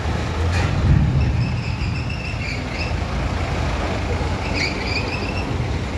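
Truck engines running as loaded trucks move slowly across a ferry landing, a deep rumble that swells about a second in. A thin high squeal sounds twice, each time for a second or two.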